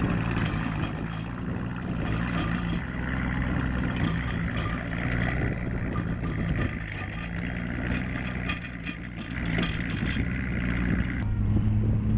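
Studebaker six-cylinder engine of an M29 Weasel tracked carrier running as it drives, with light clicking and rattling from the steel tracks.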